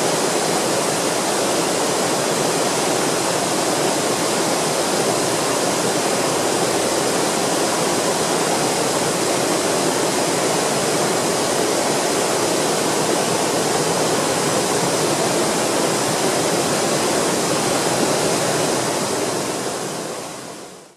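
A waterfall with a twenty-eight-foot drop into a pool makes a steady rush of falling water, which fades out over the last two seconds.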